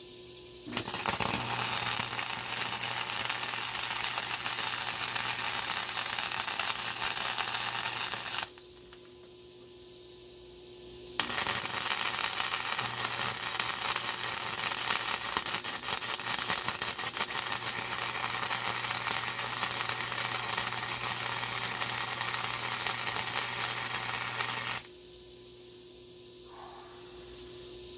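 Flux-core wire-feed welder arc crackling and sputtering while welding on a steel mower deck, in two long beads: one of about eight seconds, then a pause of a few seconds with a low hum, then another of about thirteen seconds.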